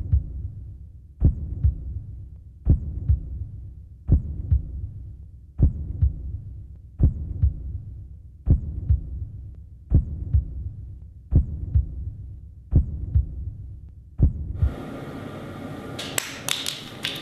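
Slow heartbeat sound effect: a heavy double thump about every second and a half over a low hum. About fourteen and a half seconds in the heartbeat stops and room noise with a few clattering knocks takes over.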